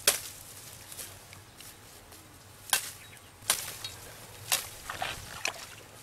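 Hands working in shallow muddy water: a few sharp wet slaps and splashes, the loudest right at the start and the rest scattered through the middle.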